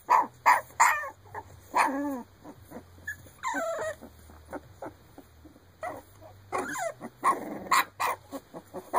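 19-day-old Shar Pei puppies whimpering and yelping in a string of short calls, some of them falling in pitch.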